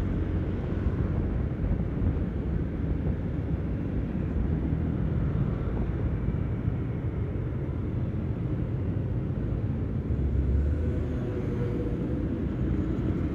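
Steady low rumble of riding a Honda PCX 160 scooter through traffic: wind on the microphone mixed with the scooter's engine and the surrounding vehicles. A deeper rumble swells briefly about ten seconds in.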